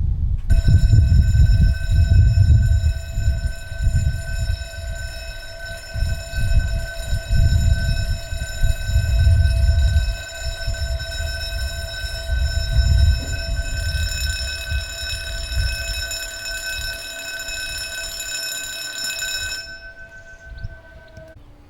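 Level crossing warning alarm sounding one steady high tone, starting about half a second in and cutting off near the end. Under it runs a loud, uneven low rumble.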